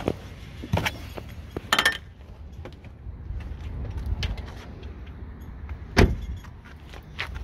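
Someone climbing out of a car: clicks and rattles of the door and handling noise, then one solid thump about six seconds in.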